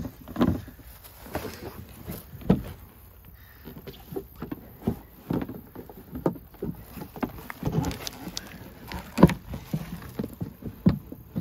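Folding kayak's stiff plastic hull sheet being bent and worked by hand into shape, with irregular knocks and clicks as the panels and metal brackets are fitted. The sheet takes real strength to bend.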